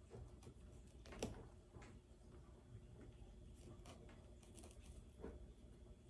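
Faint scraping and picking of a flathead screwdriver prying pieces of skin out of a carved pumpkin, with a sharper tick about a second in and another near the end.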